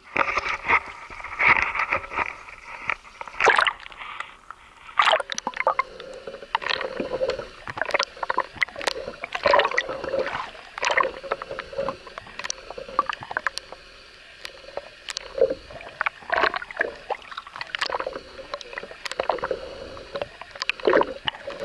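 Water sloshing and splashing around a small boat on a lake, with irregular sharp splashes about every second.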